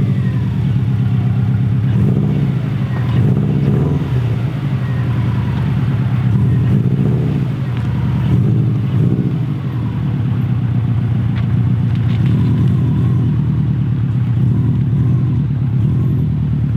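A 2003 Subaru WRX's turbocharged flat-four engine running steadily with a deep, low note.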